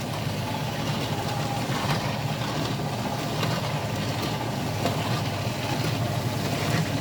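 An es puter (churned ice cream) machine running with a steady, even mechanical hum from its motor and drive.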